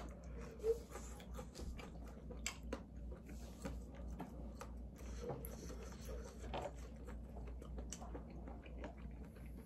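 Faint chewing of tteokbokki rice cakes by two people, with scattered small clicks.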